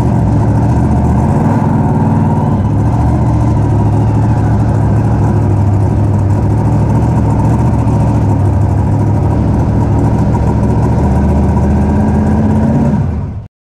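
Raminator monster truck engine running steadily, heard from inside the cab. Its pitch rises slightly near the end, then the sound cuts off abruptly.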